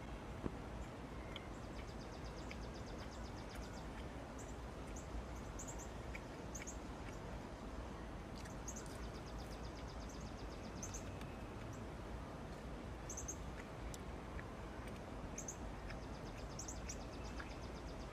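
Faint steady background hiss with small birds chirping, short high calls and quick trills recurring every second or two.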